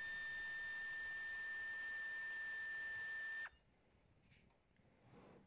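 A steady high-pitched electronic tone, like one long continuous beep, that cuts off abruptly about three and a half seconds in, leaving near silence.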